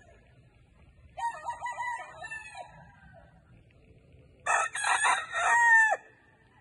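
Rooster crowing: a fainter crow about a second in, then a louder crow near the end that trails off with a falling pitch.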